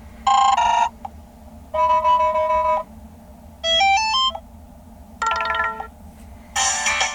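Ringtone previews playing from the Toscido X109's speaker: five different short electronic tunes, each cut off after about half a second to a second before the next starts. The third climbs in quick stepped notes.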